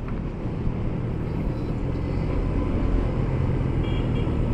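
Motorcycle engine and wind noise heard through a microphone inside a closed helmet, a steady low rumble that grows gradually louder as the bike speeds up.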